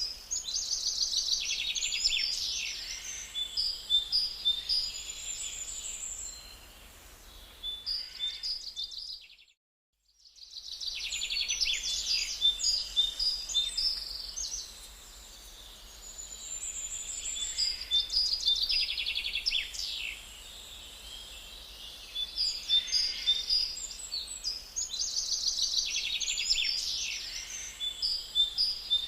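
Songbirds singing in repeated phrases of quick, high chirps and trills over a faint steady background hiss. The sound cuts out completely for about a second around ten seconds in.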